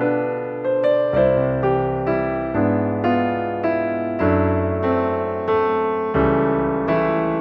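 Background music: a solo piano (electric piano) playing a gentle melody with notes struck about twice a second over sustained bass notes.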